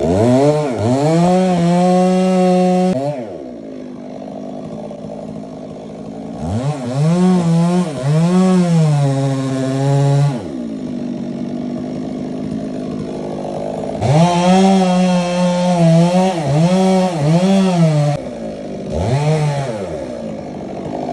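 Two-stroke chainsaw revved to full throttle in four spells while sawing wood. Its pitch sags and recovers as the chain bites, and it drops back to idle between spells.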